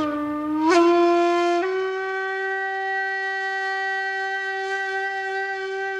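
A wind instrument playing a long held note that bends upward about a second in, then steps up to a higher note that is held steadily with a slight waver.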